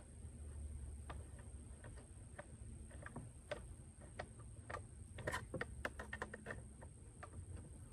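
Irregular light clicks and taps of a hand tool working at the carburetor and cover of a Husqvarna 1100CD chainsaw, the engine not running. The clicks are sparse at first and come thicker about halfway through.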